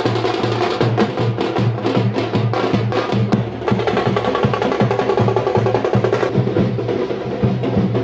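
Dappu frame drums beaten with sticks in a fast, steady rhythm.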